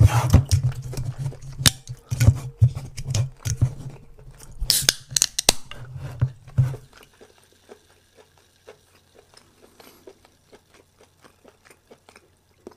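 A person chewing a very chewy mouthful of food with the mouth closed. Over the first half there are louder knocks and rattles from a soda can being picked up and handled. After that, soft, frequent chewing clicks.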